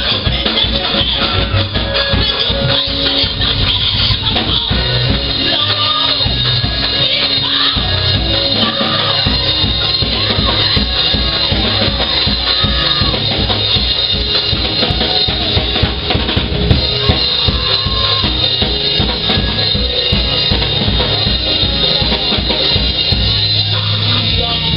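Live church band music with a drum kit playing a steady beat over bass and keyboard.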